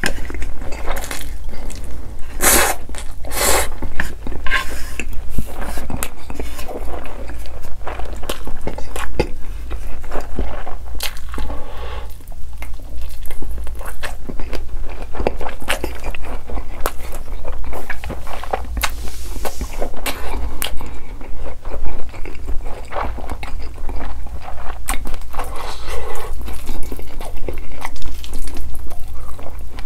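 Close-miked eating sounds: slurping instant noodles and chewing, with a steady run of wet mouth clicks and smacks, and a bite into a grilled sausage about midway.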